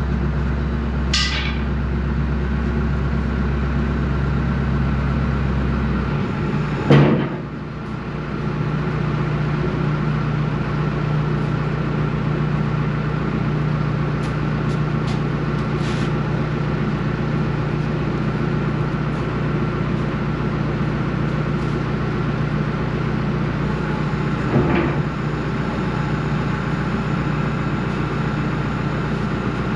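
Tractor engine running steadily, its low note changing about six seconds in. A sharp knock sounds about seven seconds in, and a smaller one later on.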